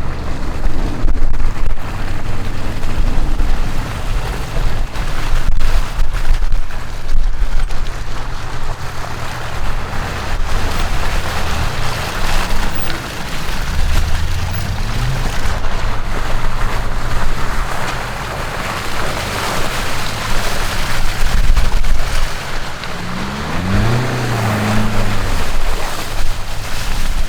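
Off-road 4x4 engine running under a loud rushing noise, with the revs rising and falling about halfway through and again near the end.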